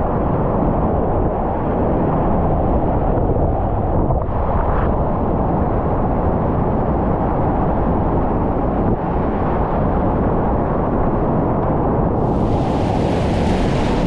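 Whitewater rapids, a loud steady rushing rumble of river water close to the microphone. About twelve seconds in, a sharper hiss of splashing spray joins it for a couple of seconds.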